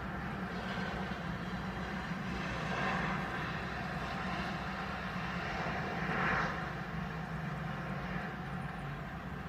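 Steady low vehicle hum heard inside a car cabin, with two soft swells about three and six seconds in.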